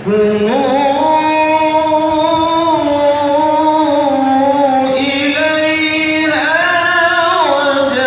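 Melodic Quran recitation (tilawah): one voice holding long, ornamented notes, stepping up in pitch twice in the first second or so, then climbing and falling again near the end.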